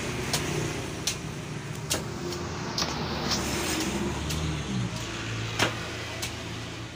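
Machete chopping the husk of a young green coconut on a wooden stump, a sharp chop about once a second, hacking the top open so the flesh can be got out.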